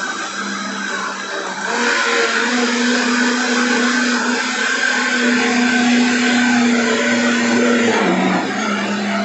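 Britânia countertop blender motor running hard on a jar packed with thick guava pulp; the owner calls it a weak blender that he has overloaded. Its pitch rises and the sound gets louder about two seconds in, then drops back near the end.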